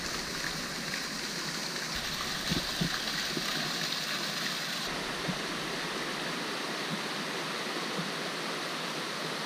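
Water from a small cascade splashing into a stone-walled natural pool, with a rocky stream running: a steady rush of water.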